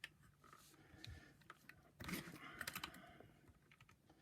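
Faint, scattered clicks and light handling rattles of hands working on the plastic housing and parts of a vacuum cleaner's power nozzle, with a busier run of clicks about two seconds in.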